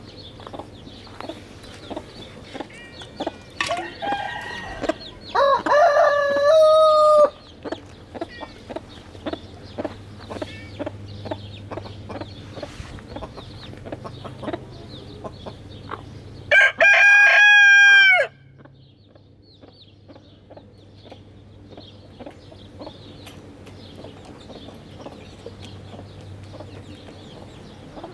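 Chickens clucking, with a rooster crowing twice, loud and drawn out: once about five seconds in and again about sixteen seconds in. Short ticks run throughout.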